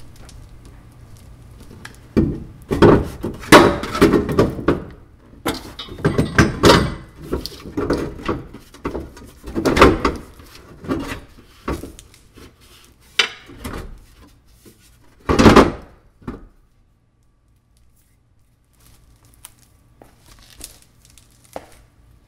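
A second-generation Nissan Xterra's rear bumper is handled and pushed into place against the body, giving an irregular run of knocks, thunks and scrapes. The loudest knock comes about fifteen seconds in, and it goes mostly quiet about a second later.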